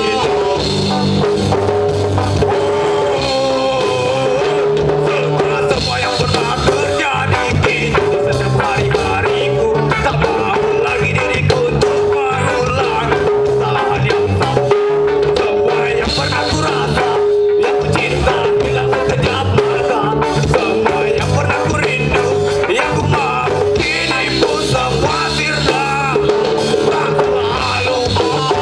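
A live ska band playing through a stage PA: drum kit, bass and electric guitars, with a held mid-range note that keeps coming back.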